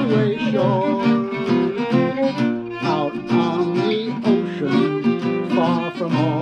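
Violin and acoustic guitar duo playing a swing tune: the guitar strums swing chords on the beat while the violin plays a melody line with vibrato.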